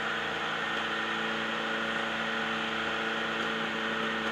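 Demolition derby car's engine idling steadily, heard from inside the cabin.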